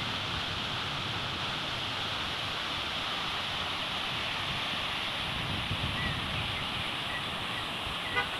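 Steady rush of water falling over a rock-wall cascade fountain into its pool, with wind buffeting the microphone now and then.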